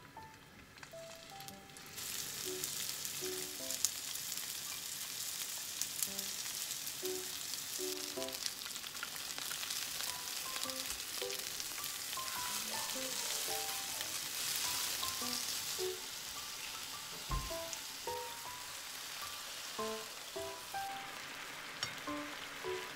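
Cod pieces sizzling as they fry in oil in a frying pan; the sizzle sets in about two seconds in and eases a little after the middle, with a few light clicks.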